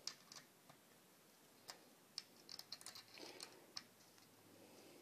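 Faint scattered clicks and light taps of a metal tri-rail mount being handled and set in place on a pump shotgun's magazine tube, most of them between about two and four seconds in.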